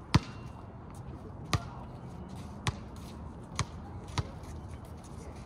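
Basketball bouncing on an outdoor hard court: five sharp, separate thumps at uneven intervals of about a second, the first the loudest.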